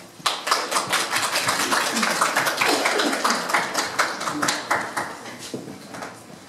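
Audience applauding: many hands clapping in a dense patter, dying away near the end.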